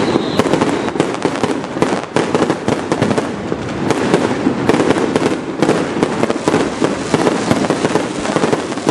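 Fireworks display going off in a dense, unbroken barrage of bangs and pops, many overlapping every second.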